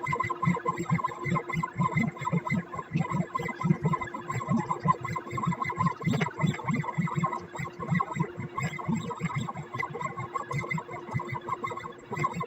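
Stepper motors of a CNC pen plotter driving the pen as it draws: a steady electric whine made of several tones, over a rapid, irregular low pulsing as the axes start and stop.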